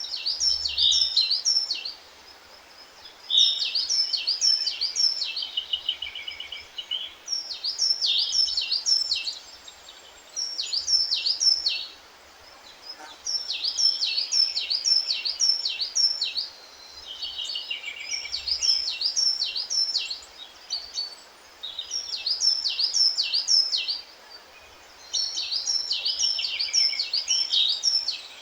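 A songbird singing the same short phrase over and over, about every three and a half seconds: a quick run of high descending notes ending in a lower trill, with short pauses between phrases. A faint steady background noise lies underneath.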